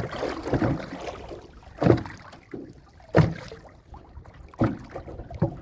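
Water splashing and knocks on a small boat as a prawn trap is hauled up: a run of short, sudden splashes or thumps about every second and a half over a noisy wash of water and wind.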